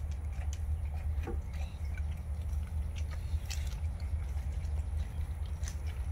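A dog lapping milk from a stainless steel bowl: quick, irregular wet laps and slurps, with a steady low rumble underneath.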